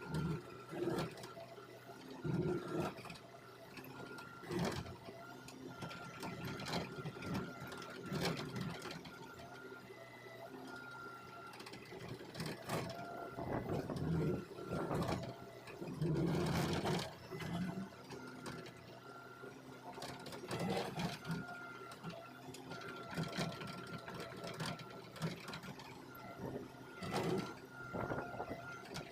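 Hitachi Zaxis excavator at work, its engine and hydraulics running with a faint steady hum and whine under irregular knocks, clanks and scrapes from the bucket and arm.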